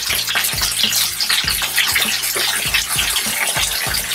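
Chicken wings frying in sesame oil in a pan: a steady sizzle with fine crackling.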